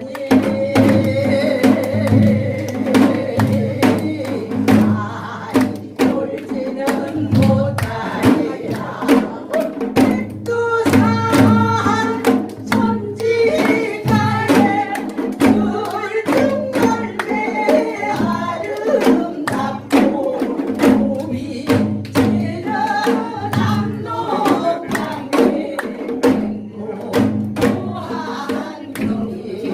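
Janggu hourglass drums struck in quick, frequent beats along with an accompanied song with singing.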